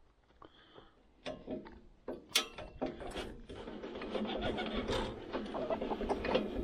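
Sawmill head being cranked down by hand to lower the blade, its height winch making a rapid mechanical clicking. A few separate clicks come first, then the steady clicking starts about halfway through and grows louder.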